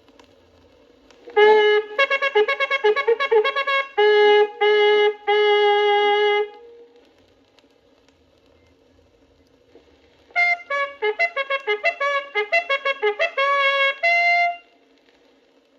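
Cavalry bugle calls on a Waterloo-era bugle: two short calls a few seconds apart, each a quick run of tongued notes followed by a few held notes.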